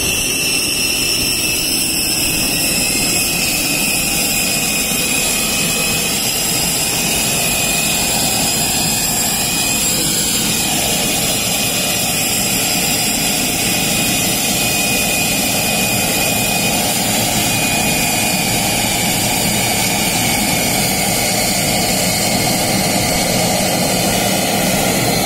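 Steady jet-turbine noise on an airport apron: an even rush with several high, steady whining tones above it.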